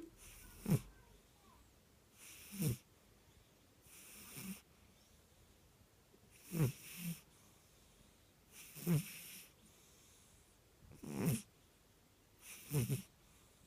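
Burmese cat snoring in its sleep: seven short snores about every two seconds.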